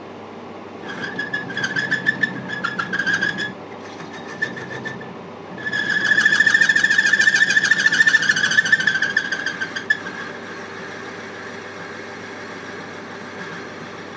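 Metal lathe boring a welded fork with a boring bar that has a worn tip: the cut sets up a high-pitched, rapidly pulsing squeal over the steady hum of the lathe, in two spells, the louder one in the middle, then fading as the cut eases. The tool is cutting into very tough MIG weld.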